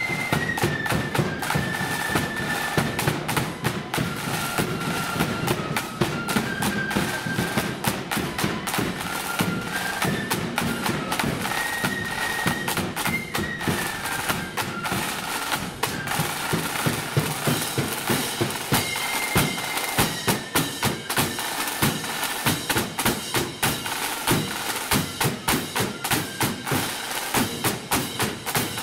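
Marching flute and drum band playing: flutes carry a stepping melody over rapid, steady side-drum strokes with a bass drum beneath. The flute tune is clearest in the first half; after that the drumming takes over.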